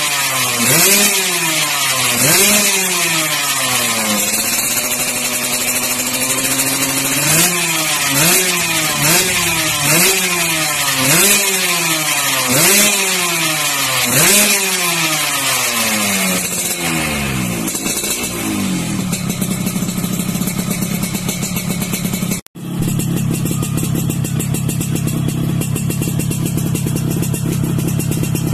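Yamaha RX-King's two-stroke single-cylinder engine blipped repeatedly through an aftermarket Phyton chrome expansion-chamber exhaust, its pitch rising and falling about once a second with one longer held rev, then dropping back to idle. After a short break about three-quarters through, the bike idles steadily through a YKJ stainless standard-style racing exhaust.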